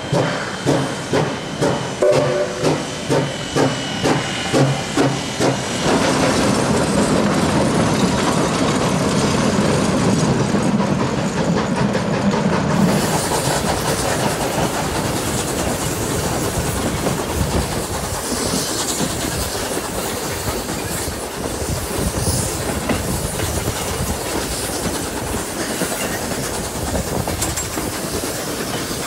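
Steam locomotive exhaust chuffing in regular beats about twice a second as it pulls away, merging into a steady rush of steam after about six seconds. From about halfway on, the steady clatter of a train running over the rails.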